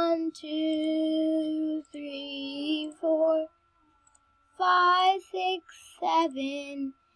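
A child singing unaccompanied: a few long, held notes at steady pitch, with short silent breaks between phrases.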